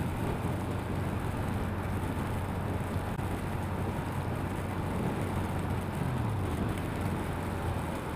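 Motorcycle riding at freeway speed in the rain: steady wind and road noise over the engine's low drone, with a low tone falling briefly about six seconds in.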